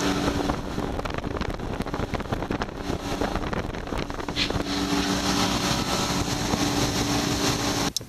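Twin Mercury outboard motors running with the boat underway on open sea: a steady engine hum under rushing wind and water noise.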